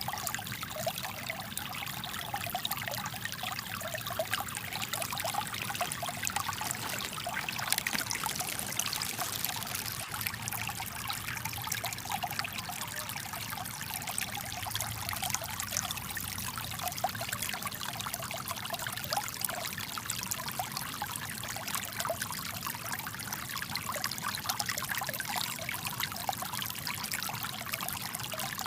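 Small brook running with rainwater, a steady trickling flow of water.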